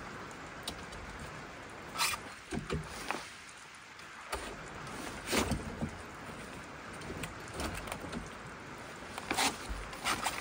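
Scattered knocks and clicks of a hardshell rooftop tent and its fittings being handled during setup, over a steady background hiss. The loudest knocks come about two seconds in, around five seconds in, and near the end.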